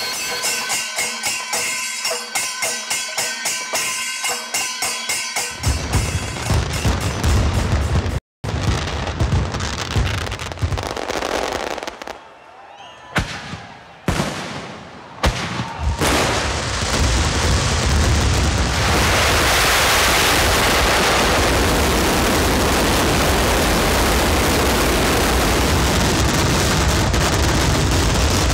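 A traditional percussion ensemble of hand cymbals and drums plays a fast, even beat. Then, after a cut, heavy fireworks: scattered loud bangs at first, and from about halfway through a dense, unbroken barrage of blasts that runs together into one steady, loud rumble.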